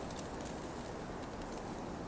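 Campfire crackling with many small sharp pops, over a steady low rush of blizzard wind.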